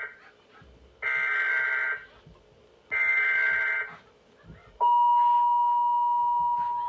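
Emergency Alert System broadcast from a television's speaker. The last of one burst of the buzzing digital SAME header is followed by two more, each about a second long with a second's gap. About five seconds in, the steady two-tone EAS attention signal starts and holds.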